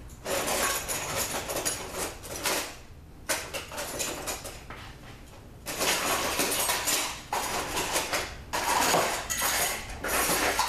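Metal cutlery clattering and clinking as someone rummages through a utensil drawer for a spoon, in several spells of jangling with short pauses between.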